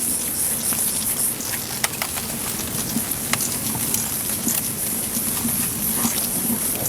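Outdoor ambience: a steady high-pitched drone, like insects, with scattered light clicks and taps.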